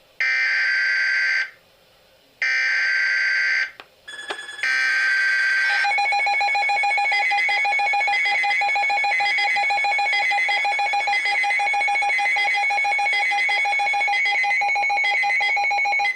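Emergency Alert System signal: three SAME digital header bursts, each a harsh buzzing data screech about a second long, with short gaps between them. Then a loud, steady electronic alert tone sounds for about ten seconds, with a warbling upper tone pulsing over it, announcing a severe thunderstorm warning.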